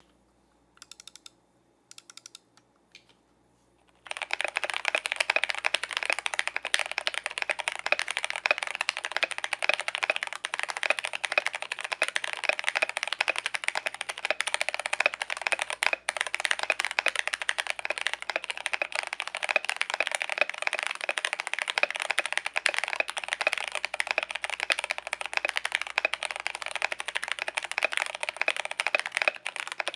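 Keychron K8 mechanical keyboard with lubed Gateron Brown tactile switches, an aluminium plate and foam-dampened case being typed on. A few separate keystrokes come first, then fast, continuous typing from about four seconds in.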